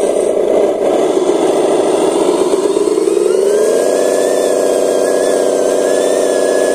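Motor sound of a radio-controlled miniature dump truck as it tips out a load of mud, dipping slightly in pitch and then holding at a steady pitch from about four seconds in.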